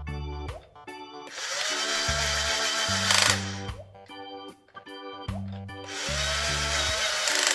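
Children's toy cordless drill's small motor whirring twice, each run about two seconds, as it turns a plastic screw into a toy locomotive, over background music.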